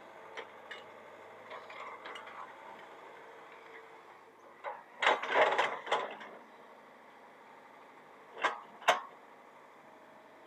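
Mini excavator working, its engine a steady hum under a burst of scraping, clattering noise about five seconds in as the bucket works the ground, then two sharp knocks near the end.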